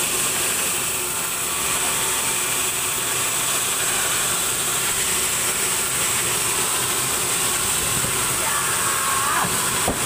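Band sawmill machinery running steadily, a constant hiss with a high whine.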